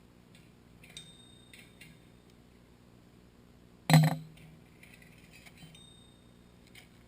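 A few light metallic clicks, then one sharp metal clank about four seconds in that rings on briefly: hand tools and bolts knocking on metal while parts are being unbolted.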